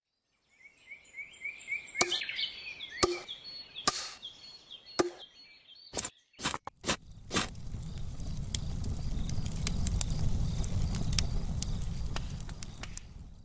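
Logo-intro sound design: quick rising bird-like chirps under a few sharp, evenly spaced chopping knocks like an axe striking wood. A cluster of harder hits follows, then a steady low rumble thick with crackling that swells and then fades out.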